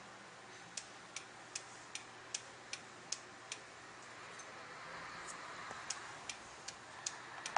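Faint, sharp ticks repeating evenly about two and a half times a second, over a low hiss. The ticks pause for under two seconds about halfway through, then resume.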